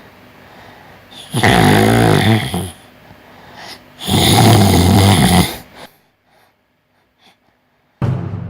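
A person snoring loudly: two long, rasping snores, each about a second and a half, with a quieter breath between them. Near silence follows from about six seconds in, then a loud sound starts abruptly just before the end.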